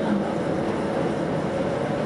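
Tatra T6A5 tram running along street track, heard from the driver's cab: an even rolling noise of wheels on rail with a steady hum.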